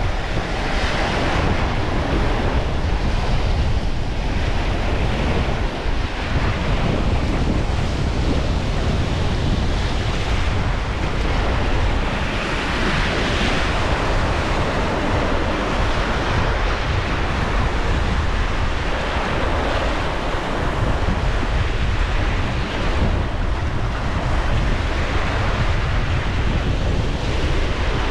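Strong wind blowing across the microphone: a steady rushing noise with a heavy low rumble.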